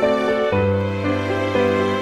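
Soft background music: sustained pitched notes over a low bass line, the chords changing about every half second.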